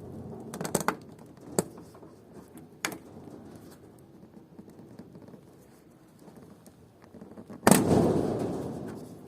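Wartburg 353 door card being pried off the door, its retaining clips popping: a few sharp clicks in the first three seconds, then one loud crack near the end that dies away over about a second and a half as the panel comes free.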